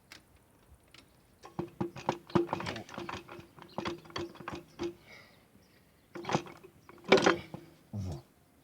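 Metal clicking and knocking from hand work on engine parts: a quick irregular run of clicks with a ringing metallic note for about three seconds, then a few louder separate knocks near the end.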